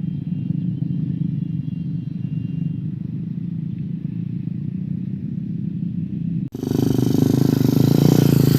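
An engine running steadily at an even pitch. About two thirds of the way through, an abrupt cut brings in a much louder, harsher engine noise with a lot of hiss.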